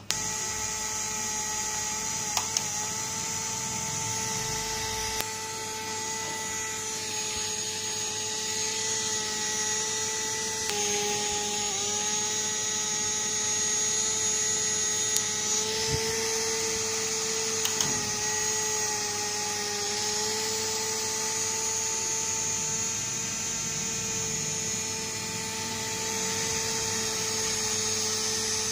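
Small electric motor of a homemade cardboard cooling fan switching on suddenly as its USB cable is plugged in, then running with a steady whine over a rush of air. A few light clicks come in the first seconds, and the pitch wavers slightly now and then.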